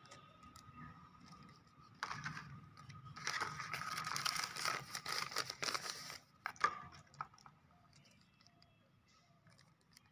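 Plastic and paper packaging of a camera battery crinkling and tearing in the hands, starting suddenly about two seconds in and lasting about four seconds. A few sharp crackles follow, then only faint handling.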